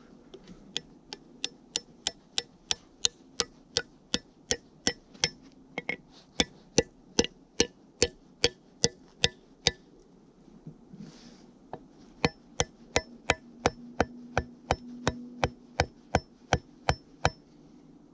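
Two steel axe heads tapped together in a steady run of light metallic clicks, about three a second, each ringing briefly. The tapping stops for about two seconds halfway through, then starts again.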